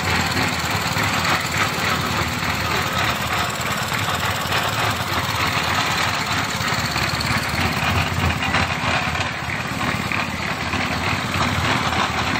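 A small engine running steadily, with no pauses, on site machinery during a concrete pour.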